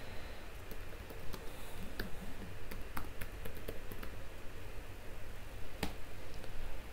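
Computer keyboard keys typed in light, irregular taps, with one sharper click near six seconds, over a low steady hum.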